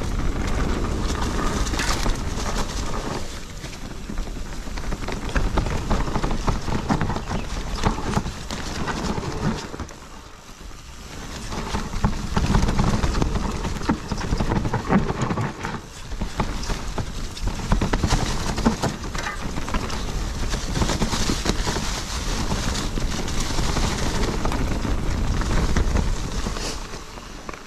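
Riding noise from a Propain Ekano 2 CF e-mountain bike on a trail: the tyres roll over the ground and wind buffets the microphone. The noise is uneven, rising and falling, and eases briefly about ten seconds in.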